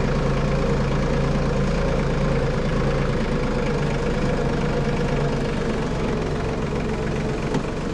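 Compact tractor's engine running steadily while the tractor drives along a trail, with one brief knock near the end.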